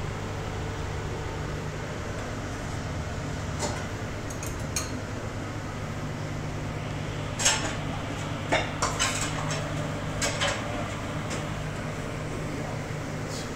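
Scattered clinks and knocks of metal pots and dishes, a few early, the loudest a little past halfway, then a quick cluster of several, over a steady low hum.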